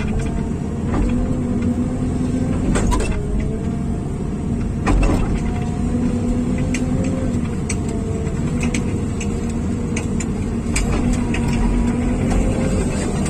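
Diesel engine of heavy earthmoving machinery running steadily, its pitch dipping and rising a little as the load changes. Scattered sharp knocks and clicks sound every second or two over the drone.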